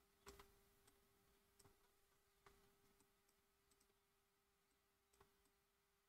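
Near silence broken by about ten faint, scattered computer mouse clicks, the first a quick double click, over a faint steady hum.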